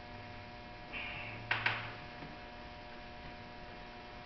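Steady electrical mains hum. About a second in there is a short scrape, then two sharp clicks in quick succession, as plastic trim on the car's rear door is pried at by hand.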